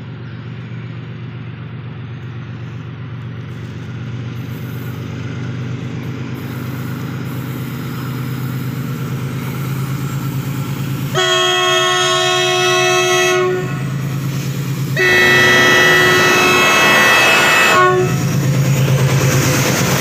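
WDG4G diesel locomotive approaching at speed with a goods train: its engine drone grows steadily louder. About halfway through, the horn sounds two long blasts of several notes at once, each two to three seconds, with a short gap between. Near the end the locomotive rushes past with wheel and rail noise.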